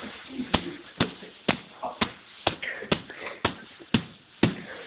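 Bubble wrap being struck and popped: sharp smacks about twice a second, with plastic crinkling between them.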